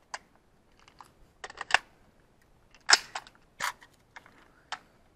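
An AR-15 rifle being handled after a light-strike misfire, giving sharp metallic clicks and clacks. There is a quick run of clicks near two seconds in, the loudest clack about three seconds in, and two more after it.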